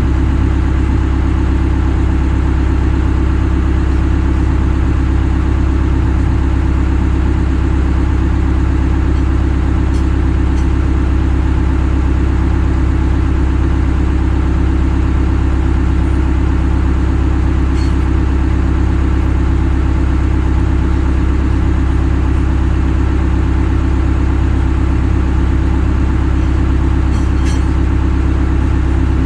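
Heavy equipment's diesel engine idling steadily and evenly, with a few faint light clicks over it.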